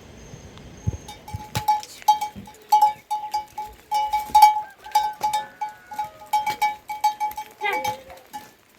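Livestock bell clanking rapidly and irregularly at one fixed pitch, as if shaken by a moving animal.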